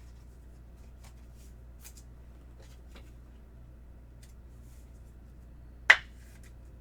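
Trading cards being handled: faint ticks and light rustles of card and packaging, then one sharp snap about six seconds in.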